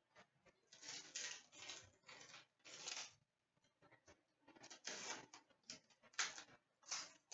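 Hockey trading cards being handled, giving a string of short, dry rustling slides of card stock with brief pauses between them.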